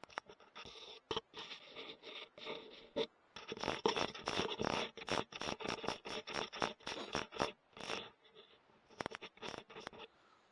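Close scratching and rubbing handling noise on a night-vision scope's built-in microphone, with many sharp irregular clicks as the scope is handled and zoomed. The noise is densest through the middle and eases off briefly near the end.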